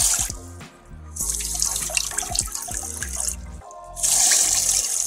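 Handheld stainless-steel bidet sprayer jetting water into a toilet bowl and over a hand, the spray breaking off briefly twice and starting again. Background music plays underneath.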